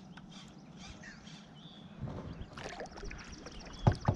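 Faint water and handling noises aboard a plastic fishing kayak, getting busier about halfway through, with a sharp knock near the end and fine rapid ticking in the last second.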